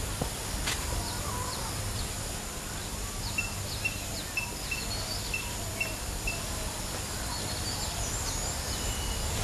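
Birds chirping over a steady low background rumble. In the middle, one bird repeats a short high note about seven times, roughly two a second.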